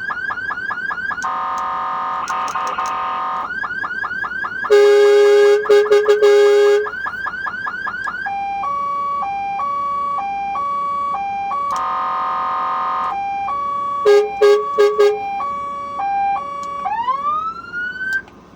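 Emertronic Emcore PSS-200 electronic siren on a fire engine cycling through its modulations. It runs a fast repeating yelp, steady horn-like tones that are loudest about five seconds in and as several short blasts about fourteen seconds in, and an alternating two-tone hi-lo. Near the end it sweeps upward in a rising wail that cuts off.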